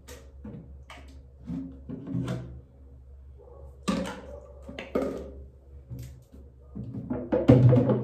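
Background music with light percussion: a string of short knocking beats.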